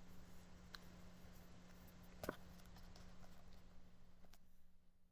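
Near silence over a low steady hum, with a few faint taps and rustles of hands on the pages of a paperback book, the clearest one about two seconds in.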